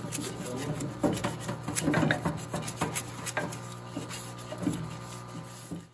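Hose-fed parts-washer brush scrubbing a mini bike torque converter housing in solvent: irregular scraping strokes with small knocks of the part against the tank, over the steady hum of the parts washer's pump. It cuts off suddenly near the end.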